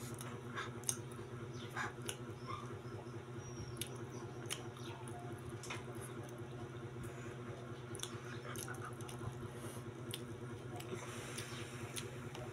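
Eating sounds: a bamboo skewer and fingers poking and picking kwek-kwek off a foil-lined paper plate, with light irregular clicks and crinkles, over a steady low hum.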